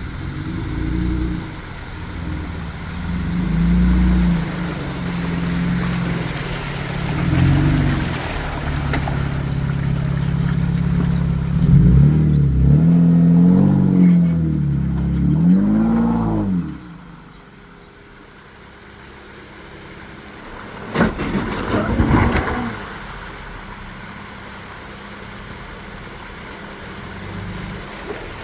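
Off-road vehicle engine revving under load on a trail climb, its pitch rising and falling repeatedly, with three quick throttle blips near the middle. The engine then drops back to a low idle, and a few seconds later comes a brief rattle of knocks.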